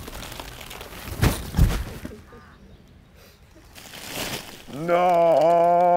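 Brief rustling noises about a second in, then near the end a voice crying out a long, drawn-out "Non!"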